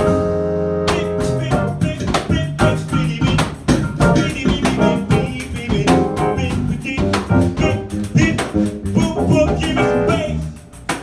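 Live jazz-Brazilian band playing an instrumental passage with no singing: piano, bass and pandeiro with drum strikes, opening on a held chord.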